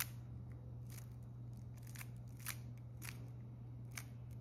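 Plastic 3x3 speed cube being turned by hand through an A-perm algorithm, its layers clicking as they snap into place: about half a dozen sharp separate clicks, over a steady low hum.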